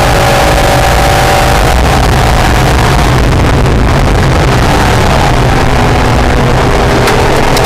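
NSX's mid-mounted V6 engine running hard on track, heard with heavy wind and road noise. The engine note falls over the first few seconds as the driver lifts or brakes, then climbs again under acceleration from about halfway through, with two sharp clicks near the end.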